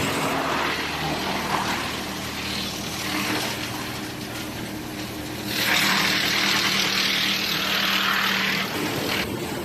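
KXC218 drum wood chipper running with a steady mechanical hum. About halfway in, a louder rush of noise lasting about three seconds comes as wood goes through the drum and is chipped.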